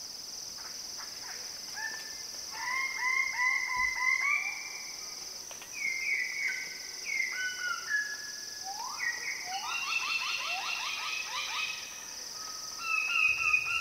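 Rainforest ambience: a steady high-pitched insect drone, with runs of short, rapid repeated animal calls, several a second, starting about two seconds in.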